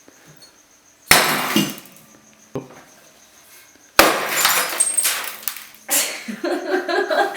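Glass being smashed for sound effects: a crash about a second in, a smaller knock a little later, then a longer crash at about four seconds and another near six, each trailing off in rattling shards.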